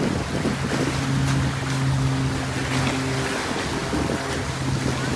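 Wind buffeting the microphone over a steady, low engine drone.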